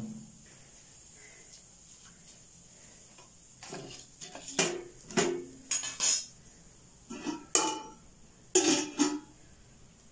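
Metal pots and utensils clinking and clattering in a series of short knocks, several with a brief ring, starting about a third of the way in.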